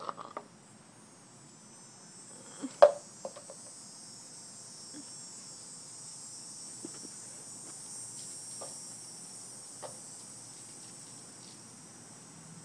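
Steady high-pitched insect chorus that swells slightly and eases off again, with one sharp knock about three seconds in and a few fainter clicks.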